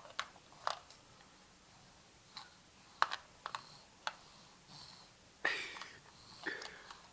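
Scattered small plastic clicks and taps as a baby handles a TV remote and its AA batteries, with a short scuffing noise about five and a half seconds in.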